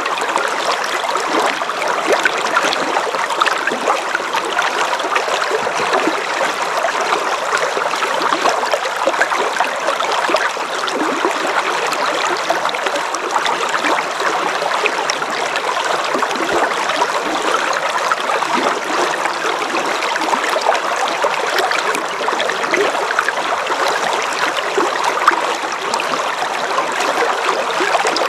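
River water flowing steadily, a continuous babble and trickle of running water.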